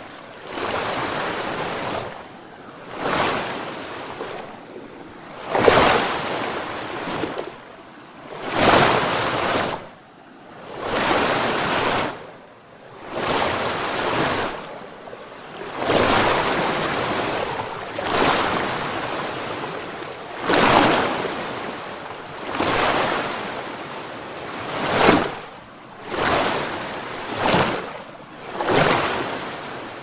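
Water surging in, in repeated rushing swells like waves breaking one after another, each building and falling away every two to three seconds.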